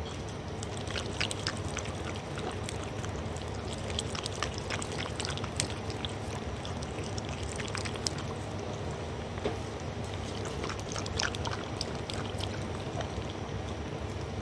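Dog lapping brothy soup from a bowl: wet tongue slurps and clicks at irregular intervals, with short pauses, over a steady hiss.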